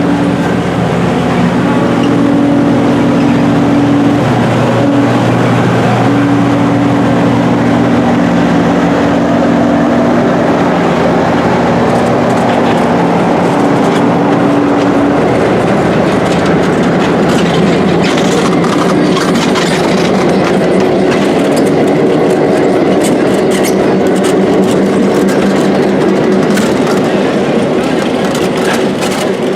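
A train on the move: a steady rumble with an engine hum in the first half that fades out about halfway through, then quick wheel clicks over the rails.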